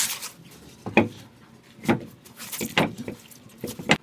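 A series of about five sharp knocks and clunks at irregular intervals, with softer handling noise between them.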